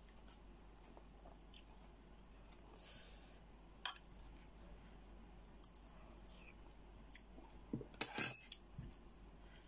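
A metal spoon scraping and clicking against a cooked crab's shell and tapping a glass dipping-sauce bowl: scattered light clicks with a brief scrape, and the loudest run of knocks about eight seconds in.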